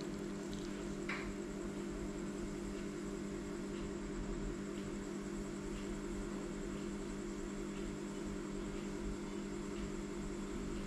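Steady electrical hum with a faint high-pitched whine above it and a few faint ticks.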